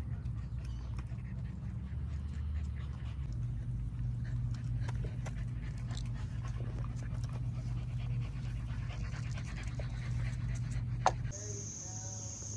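A dog panting steadily, with scattered light ticks and one sharp tick shortly before the end, after which the sound changes abruptly to a steady high hiss.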